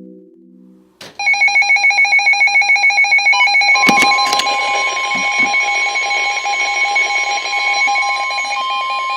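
Weather radio alert: a rapid electronic beeping alarm, about six beeps a second, starts about a second in. Roughly two seconds later the steady 1050 Hz NOAA Weather Radio warning tone joins it and holds, signalling a warning broadcast about to begin. A soft synth chord fades in the first second, and two sharp clicks sound near the middle.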